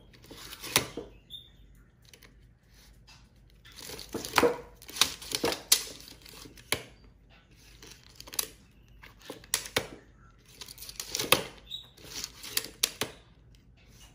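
A retractable steel tape measure being handled by a monkey: the blade pulled out, bent and slid back into its plastic case, giving irregular clusters of rattling, scraping clicks with short pauses between.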